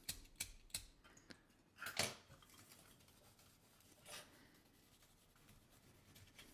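Faint clicks and a few short scrubbing strokes as the metal case of a Zippo lighter is scuffed with a Scotch-Brite pad to dull its shine.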